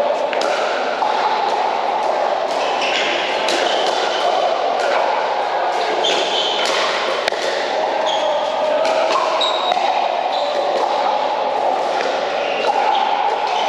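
Pickleball play: sharp pops of paddles striking a plastic pickleball and the ball bouncing on the court, repeated many times, over a steady murmur of voices in a large indoor hall.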